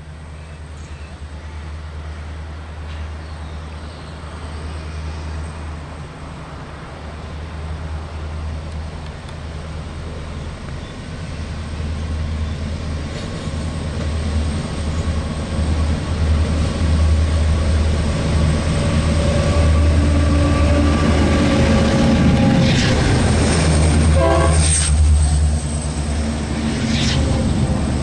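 NR class diesel-electric locomotive at the head of an intermodal container train running through a station. Its deep engine rumble grows steadily louder as it approaches and passes, with wagon noise following. A short horn blast sounds near the end.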